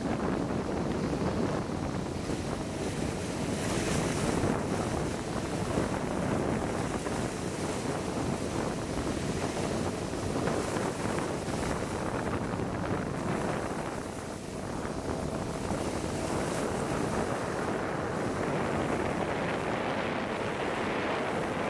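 Sea water rushing and splashing along the hull of a moving boat as it pushes a bow wave, with wind buffeting the microphone. A steady rushing noise that dips briefly about two-thirds through.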